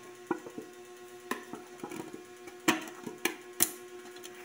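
A metal Royal Dansk butter cookie tin being handled while its sealed lid is worked open: a string of sharp clicks and taps of fingernails and metal, the loudest a few seconds in, over a faint steady hum.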